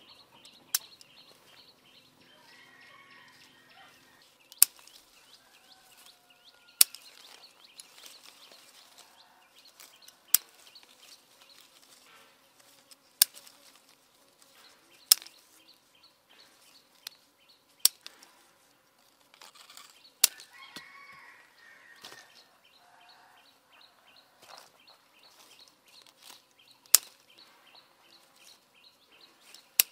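Pruning shears snipping through citrus fruit stems: about ten sharp snips, a few seconds apart.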